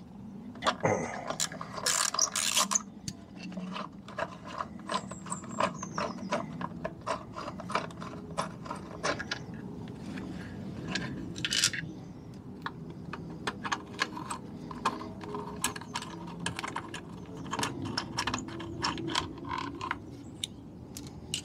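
Socket ratchet clicking in quick runs as the bolts holding a scooter's plastic airbox are undone, mixed with knocks and rattles from the plastic airbox being handled.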